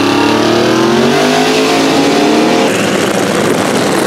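Car engine under hard acceleration, its pitch rising steadily, heard from inside the cabin. About two and a half seconds in, the engine note drops away into a rough rushing noise.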